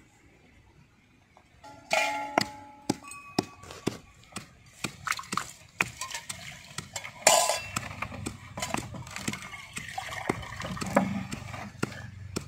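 Small stainless steel pot of water being handled: a run of metal clinks and clangs, some ringing briefly, with one louder clank a little past the middle, and water splashing as a hand works in the pot.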